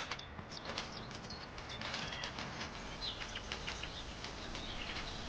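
Small birds chirping in short calls over outdoor ambience, with scattered light ticks and rustles.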